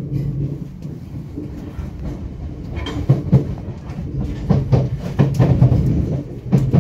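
Class 455 electric multiple unit running over pointwork, its wheels knocking and clattering over the switches and crossings in irregular clusters above a steady low rumble.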